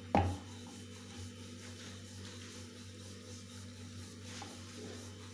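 A single sharp knock just after the start, then faint handling noise over a steady low hum.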